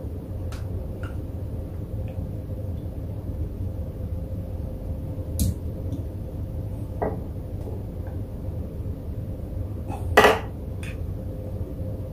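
A metal spoon clinks and taps against a small ceramic dish a few times as oyster sauce is spooned into it, the sharpest clink about ten seconds in. A steady low hum runs underneath.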